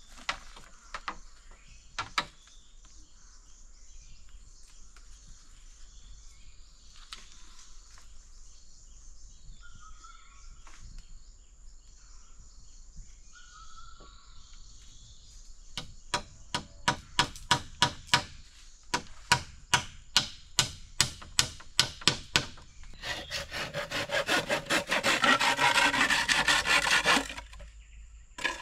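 Hammer striking bamboo poles: a few separate knocks at first, then a fast run of blows, about two or three a second, for some seven seconds. After that comes about four seconds of sawing on wood near the end.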